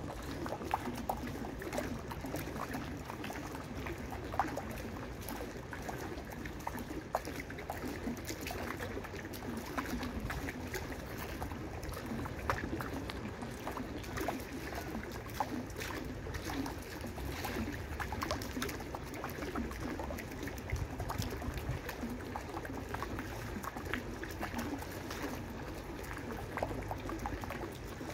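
Water flowing over the stone steps of a stepped fountain: a steady trickling and splashing with many small drips.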